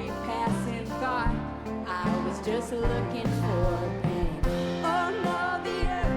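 Live band playing a country-tinged indie rock song, with guitars over a steady bass line and a voice singing the melody.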